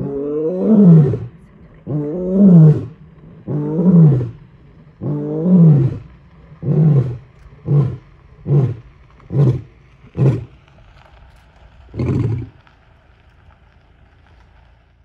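Male lion roaring to call his pride: about four long roars that rise and fall in pitch, then a run of shorter, quicker grunts, with one last grunt about twelve seconds in.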